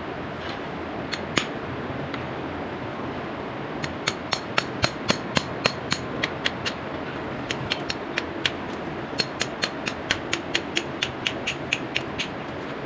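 Hammer striking a steel chisel: sharp, ringing metal-on-metal blows in quick runs of about four a second, with a few scattered blows before, as the chisel chips out an old water line.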